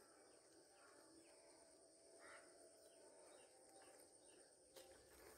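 Near silence: faint outdoor ambience with a steady high-pitched insect drone and a few faint bird chirps.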